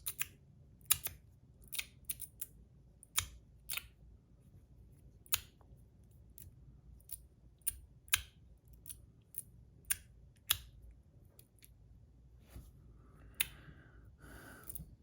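A fidget slider being worked by hand: sharp, irregular clicks, about one or two a second, as its sliding parts snap from one stop to the next, with a couple of short scraping sounds near the end.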